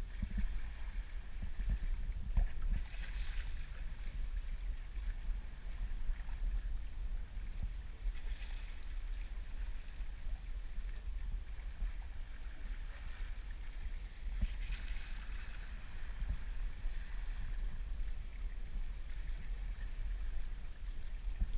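Sea water rushing and splashing along a sailboat's bow as it moves under way, over a steady low rumble, with a louder hiss of spray every few seconds.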